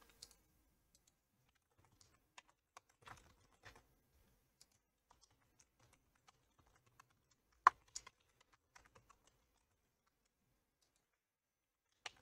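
Faint computer keyboard typing in scattered, unhurried keystrokes, with one sharper click a little past the middle.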